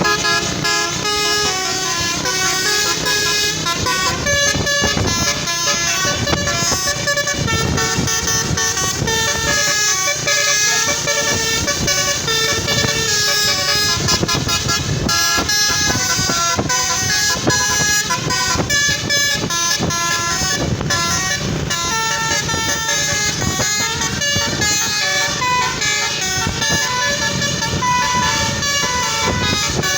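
Basuri multi-tone telolet bus horn playing a fast melodic remix in the style of angklung, a continuous run of quick stepping horn notes.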